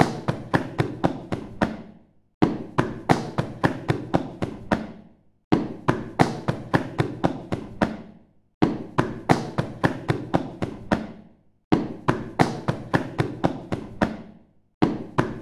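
Boots being smacked to knock snow off: runs of about eight quick knocks, each run opening with a louder hit, repeating about every three seconds with short pauses between.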